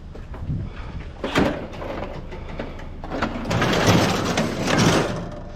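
Scrap being handled and loaded: a sharp knock about a second in, then a couple of seconds of scraping and rattling, like metal sliding over metal.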